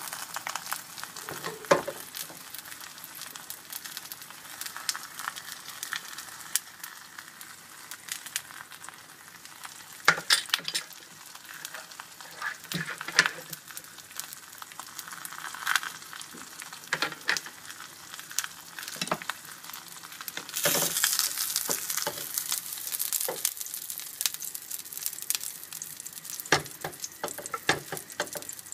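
Beaten eggs for a cheese omelette frying in a nonstick pan with a steady sizzle, broken by occasional sharp knocks and scrapes in the pan. The sizzle grows louder and brighter for a few seconds about two-thirds of the way through.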